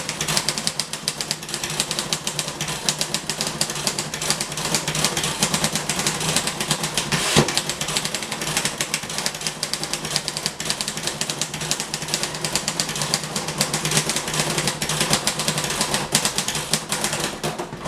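Royal Quiet De Luxe manual portable typewriter being typed on fast and without a break, a rapid rattle of keystrikes, with one heavier clunk about seven seconds in.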